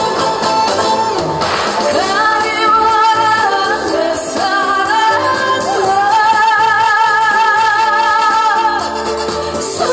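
A woman singing a Korean popular song into a handheld microphone over an amplified band accompaniment, holding long notes with vibrato; the longest starts about six seconds in and lasts nearly three seconds.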